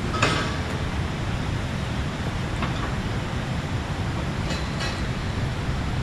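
Steady low wind rumble on the microphone, with a few faint, brief high sounds, one just after the start.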